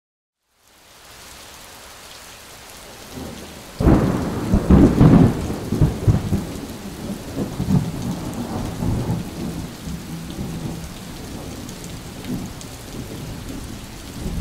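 Thunderstorm: steady rain hiss fades in, then a sudden loud thunderclap about four seconds in, followed by long rolling rumble that slowly dies away under the rain.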